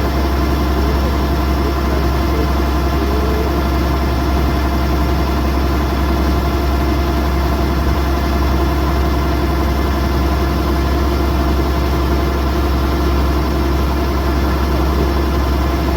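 Kubota DC108X combine harvester's diesel engine and machinery running steadily, a constant drone with a strong low hum and several steady whining tones above it.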